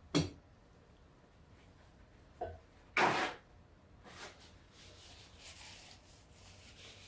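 A mug knocks down onto a wooden table, then a paper napkin gives a sharp rustle about three seconds in as it is pulled from its holder, followed by softer rustling as it is handled and held to the face.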